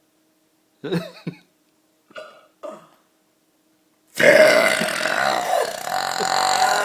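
A woman's long, loud burp of about three seconds, starting about four seconds in, after a few short, quieter sounds.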